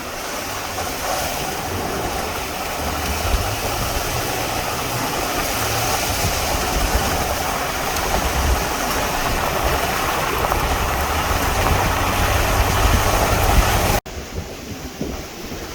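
Steady roar of wind blowing across the microphone, with uneven low buffeting rumbles. It breaks off abruptly near the end, and a quieter roar follows.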